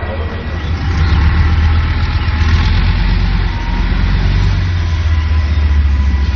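Heavy tracked armoured vehicle's diesel engine running with a loud, steady low drone that swells about a second in.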